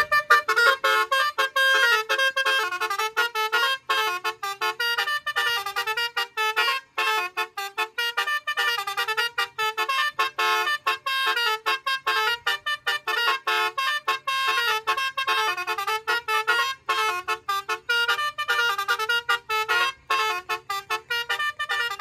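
Basuri multi-tone horn module on a Toyota Fortuner playing a fast melody through the car's horns. The notes are short and clipped and follow each other rapidly without a break.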